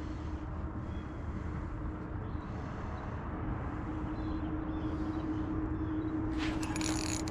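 A steady low hum with a faint drone that grows a little stronger midway. Near the end, a burst of clicking and rattling close to the microphone as fishing tackle is handled.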